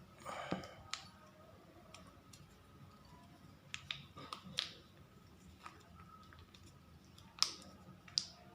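A cat eating crunchy treats: scattered sharp crunches and clicks of chewing, with a brief noisy burst at the start.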